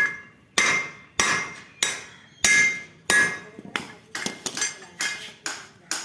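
Hammer blows on steel: about a dozen strikes at a steady pace of roughly two a second, some of them leaving a short metallic ring, the later ones lighter and a little quicker.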